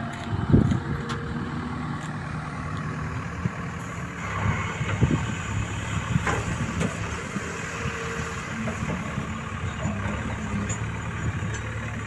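JCB backhoe loader's diesel engine running steadily as the machine moves across the field. A loud thump comes about half a second in, and a smaller one around five seconds.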